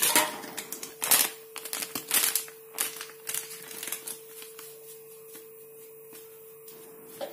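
A paper spice packet being picked up and handled, crinkling and rustling in several sharp bursts over the first four seconds and then quieter, over a faint steady hum.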